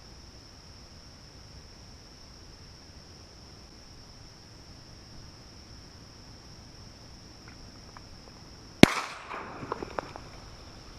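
A single shotgun shot near the end, one sharp loud crack, followed by about a second of smaller clicks and knocks.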